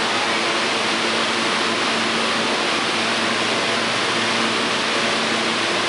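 R160 subway car standing at the platform, giving a steady rushing hiss with a low, even hum underneath.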